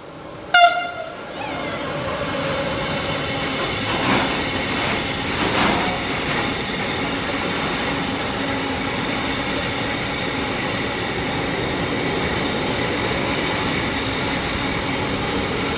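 TRAXX locomotive sounds its horn in one short, loud blast about half a second in, then the locomotive and its container wagons pass in a steady rumble, with a couple of wheel knocks a few seconds later.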